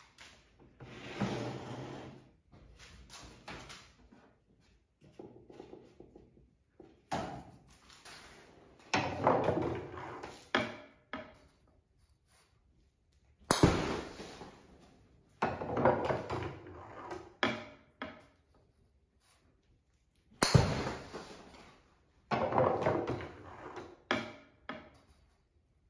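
Golf driver striking a ball off a tee twice, each sharp crack followed by a few seconds of clattering as the plywood ball dispenser rolls the next ball down onto the tee. Before that, wood knocking and rubbing as the plywood box is handled.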